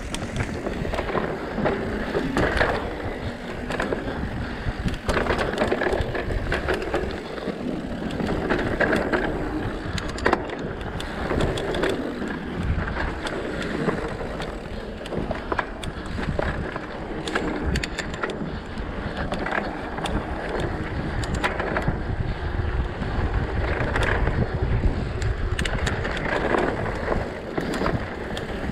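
Mountain bike rolling down a dirt singletrack: tyres crunching over dirt and small stones, with the bike rattling and clicking over bumps and wind rumbling on the microphone.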